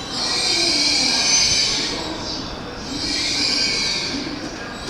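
Electric train's steel wheels squealing as it moves along the station platform: a high, wavering squeal that swells twice.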